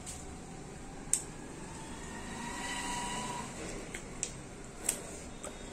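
Quiet room background with a handful of short, sharp clicks and small taps from two people eating curry and paratha by hand: chewing, lip smacks and fingers on the plastic food tray. A faint steady tone swells and fades in the middle.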